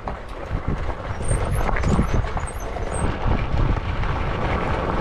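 Bicycle rolling over a rough gravel and dirt track: tyres crunching on loose stones and the bike rattling over bumps, with wind rumbling on the microphone.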